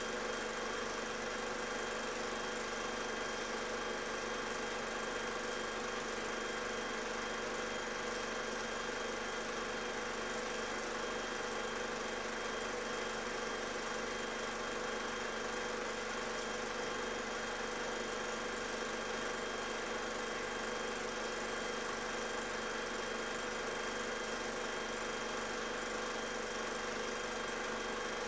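A steady, unchanging mechanical hum over hiss, with several constant tones and no rhythm or separate strokes.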